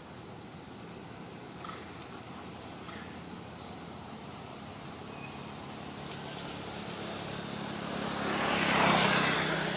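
A motor vehicle passing by, its sound building from about eight seconds in, loudest about nine seconds in, then fading. Under it runs a steady, high, rapidly pulsing trill.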